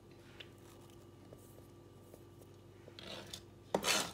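Mostly quiet, with a faint steady hum and a few light ticks, then near the end a short loud clatter and scrape as chopped red onion goes into a bowl of shredded cabbage and grated carrot.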